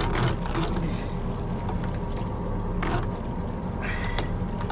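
Steady low hum of a small fishing boat at sea, with a few brief noises over it.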